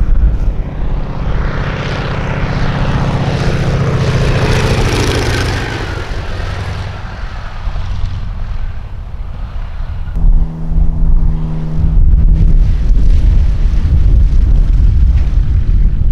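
A low-flying propeller airplane's piston engine passes by, its note rising in loudness and then falling in pitch as it goes over. About ten seconds in, the sound changes suddenly to another light plane's engine running steadily, with heavy low rumble from wind on the microphone.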